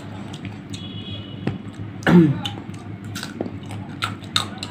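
Eating sounds of raw sour mango with chilli paste: scattered crunchy clicks and mouth smacks, with one loud, short vocal sound dropping in pitch about two seconds in.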